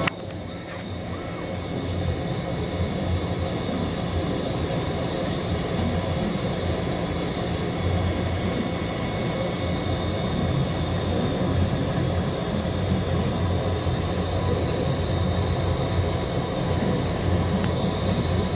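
CO2 laser cutter running a fast vector cut, its stepper motors driving the head and gantry back and forth over the steady hum of the air assist and machine. It runs smoothly, with no thumps of skipped steps.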